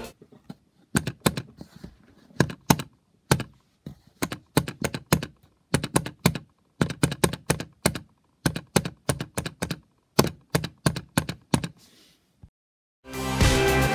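Plastic LEGO pieces clacking as a finger presses the keys of a small brick-built typewriter model. The keys click in quick, irregular runs with short pauses, like typing on a typewriter. Background music comes back in near the end.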